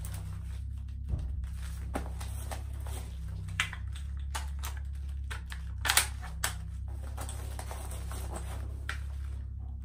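Mechanical clicks and clacks of a Howa Type 89 rifle replica being handled through a tactical reload, magazine out and magazine in: a handful of sharp knocks, the loudest pair about six seconds in, over a steady low hum.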